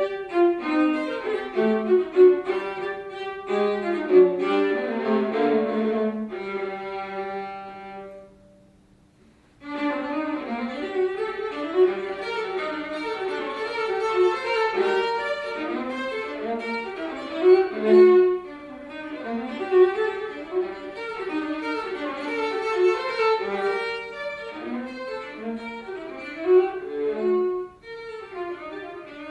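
Solo viola playing a baroque-style suite: the menuet ends on a held note that dies away about 8 seconds in. After a short pause the gigue begins, about 9.5 seconds in, and carries on to the end.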